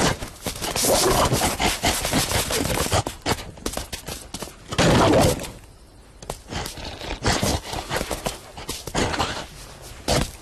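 Cartoon sound effects: a rapid run of clattering knocks and scrapes, with a louder burst about five seconds in.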